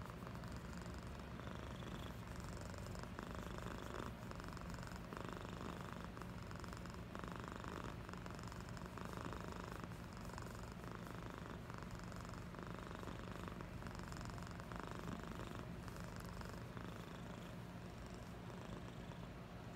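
Domestic cat purring steadily with the microphone pressed into its fur, the purr swelling and easing with each breath, about once every two seconds.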